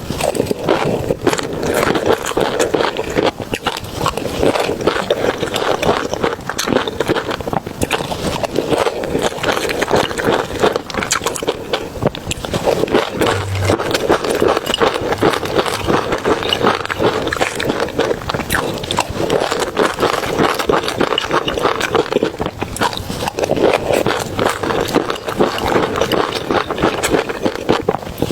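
Close-miked eating sounds: continuous chewing with dense, irregular mouth clicks.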